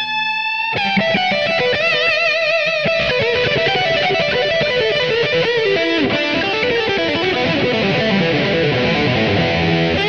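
Background music led by an electric guitar playing a melody, with a wavering vibrato note and quick note runs.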